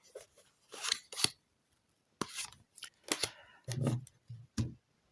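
A deck of fortune-telling cards being handled as a card is drawn: a string of short papery rustles and slaps, with a couple of duller knocks near the end.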